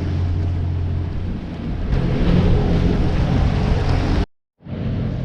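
Sailing yacht's engine running steadily under way, with a low hum under wind and water noise. It gets louder about two seconds in, cuts out abruptly near the end, then comes back with a higher-pitched hum.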